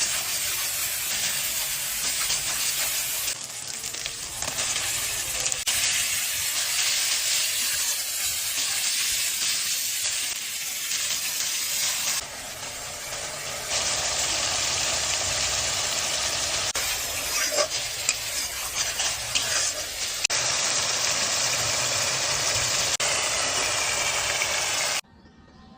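Chicken frying in hot oil in a pan, a steady sizzling hiss, stirred now and then with a few light clicks. The level changes abruptly a few times and the sound cuts off just before the end.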